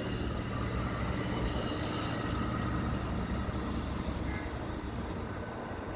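EXO commuter train of Bombardier multilevel coaches rolling past on the rails: a steady rumble that slowly fades.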